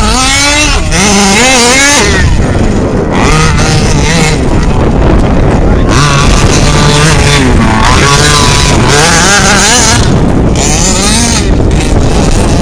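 Small two-stroke petrol engine of a large-scale FG RC buggy revving up and down over and over as it is driven hard, its pitch rising and falling with the throttle.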